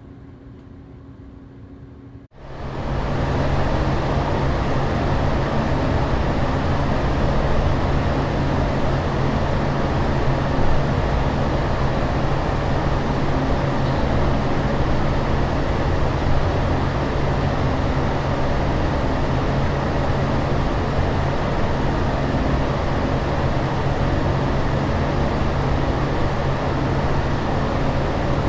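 A ceiling fan runs quietly with a steady whir. About two seconds in it cuts out and a bathroom air extractor fan comes in, building over a second to a loud, steady rushing whir with a low hum.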